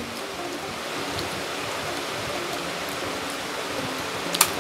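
Steady hiss, with one sharp click near the end.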